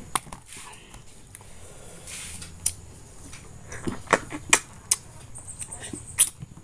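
Close-up eating of wild passion fruit: sucking the pulp and seeds from the split rind, with scattered sharp clicks and crunches, the loudest one near the end.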